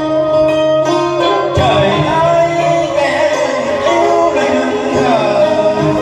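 Music from a song performance: a melody line that bends and wavers in pitch over a steady bass accompaniment.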